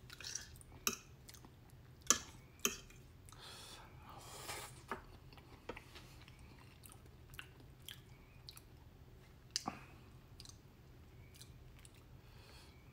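A person chewing and smacking food, mouth sounds heard up close, with scattered sharp clicks that come thickest in the first few seconds and once more about two-thirds of the way in.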